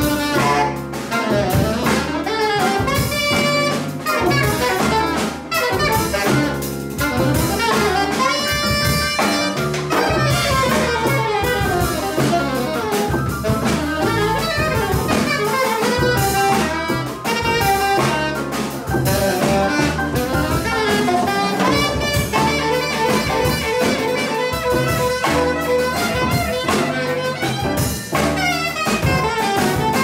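Small jazz band playing live: saxophone playing quick runs over piano, upright double bass and drum kit.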